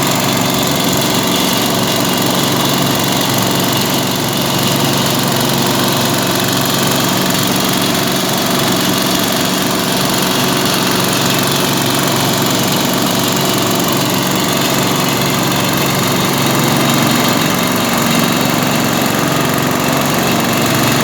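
Diesel engine of a JCB backhoe loader running steadily at an even speed.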